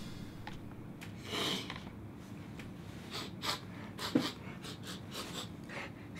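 A man sniffing and snorting in short, irregular bursts with heavy breathing, fairly quiet.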